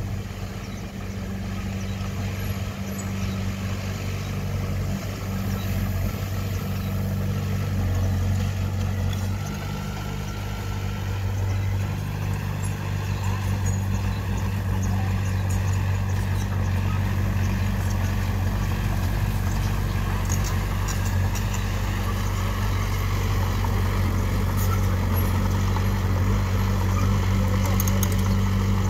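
Diesel engine of heavy earthmoving equipment running steadily with a deep hum, growing louder over the first several seconds and then holding.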